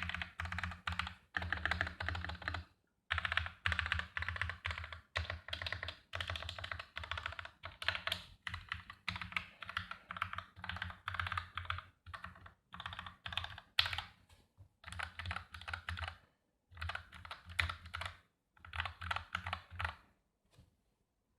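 Modifier keys on a Jargo OM-09 TKL mechanical keyboard being pressed repeatedly in quick runs with short pauses between them. The keyboard has a plastic case, a metal plate, thin PBT keycaps, and Gateron Milky Yellow linear switches lubed with Krytox 205g0. The keystrokes stop about twenty seconds in.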